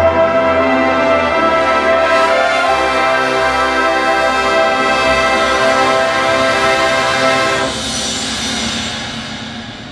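Drum and bugle corps horn line and front ensemble playing loud sustained brass chords that shift twice. The chord cuts off sharply about three-quarters of the way through, leaving a fading ring.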